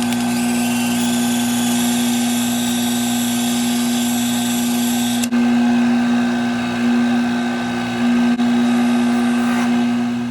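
12-inch disc sander's electric motor running steadily with a strong, even hum, broken by two brief dips.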